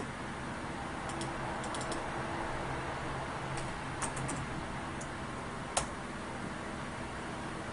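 Scattered clicks of a computer keyboard: a few quick taps in small clusters, with one sharper single click about six seconds in, over a steady hiss.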